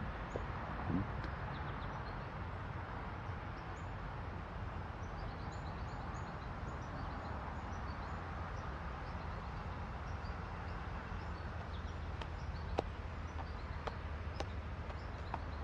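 Distant diesel freight locomotives running as the train slowly approaches, a steady low rumble, with small birds chirping faintly over it and a couple of light clicks near the end.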